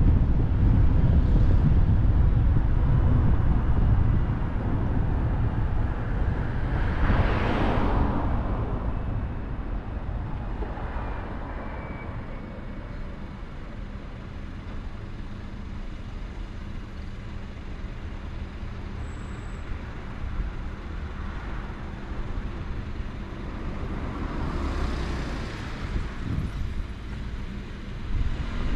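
Road noise of a car driving: a steady low rumble of tyres and engine that eases off after about four seconds. Two other vehicles swish past, one about seven seconds in and one near twenty-five seconds.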